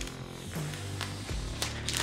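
Background music with sustained bass notes and a regular beat.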